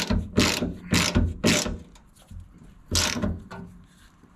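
Hand socket ratchet clicking as a bolt is run down: a quick run of strokes about two a second, a pause, then one last stroke about three seconds in.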